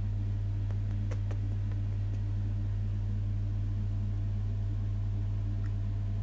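A steady low hum, with a few faint clicks about a second in and one near the end.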